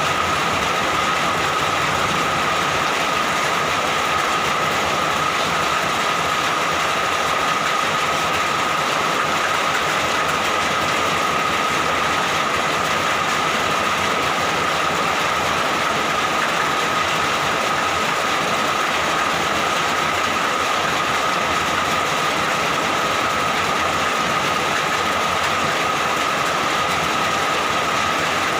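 Steady, even rain falling without a break, with a thin high steady tone running through it.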